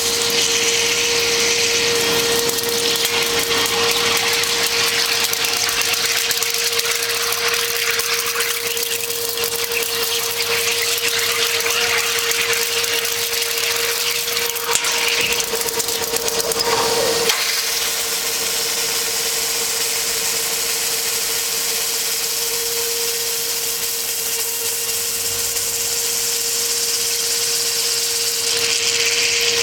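DAMA HDC 1640 high-speed CNC drilling machine running, its spindle drilling holes in a metal plate under coolant spray: a steady whine over a high hiss. About 17 seconds in the whine wavers and fades, then returns a few seconds later.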